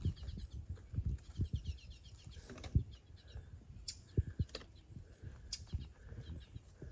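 A small bird calling in quick chattering runs of short high notes, which the hiker takes for alarm at her approach. Scattered low knocks and rustles sound close by.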